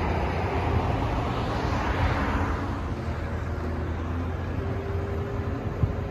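Aircraft tow tractor's engine running with a steady low hum as it pulls a Boeing 747 out of the hangar. A hiss swells and fades about two seconds in, and there is a single click near the end.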